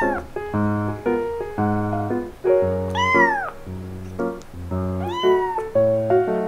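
A very young kitten crying, three loud, high meows that rise and fall in pitch, near the start, about three seconds in and about five seconds in. Background music with piano-like notes plays underneath.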